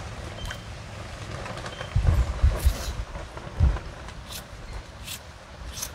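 Raw potatoes being cut into small pieces, heard as a few short, sharp, irregularly spaced cuts. Wind buffets the microphone in low rumbles about two seconds in and again a little after.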